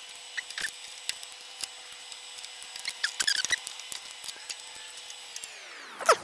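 Fast-forwarded sound of hand work with pliers on engine lock wire: a steady high hum with overtones that glides down in pitch near the end as playback slows, with scattered quick clicks and chirps and a sharp falling chirp just before the end.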